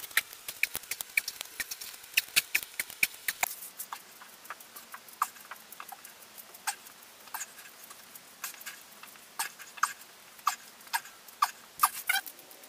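A run of irregular light clicks and small squeaky taps, a few a second, from someone doing push-ups on a rubber gym mat.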